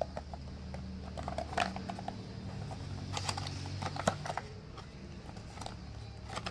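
Irregular light plastic clicks and taps from handling small earbuds and their packaging, over a steady low hum.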